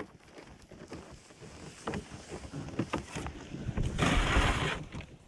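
Horse-drawn sleigh moving over snow: scattered soft crunches and knocks of hooves and sleigh runners on the snow. About four seconds in there is a louder rushing noise of wind on the microphone, lasting under a second.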